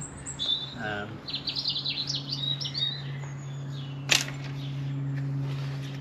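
Small birds chirping and twittering over a steady low hum. About four seconds in comes a single sharp click as the Tailfin rack's release tabs pop free of the bike.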